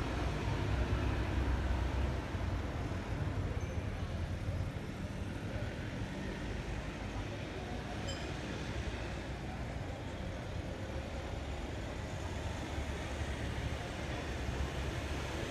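Steady low rumble of distant city traffic, with no thunder heard.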